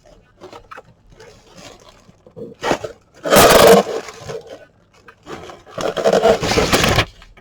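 A delivery box and its packing are being handled and opened: two loud scraping, rustling bursts, the first about three seconds in and a longer one near the end, with faint handling noise between.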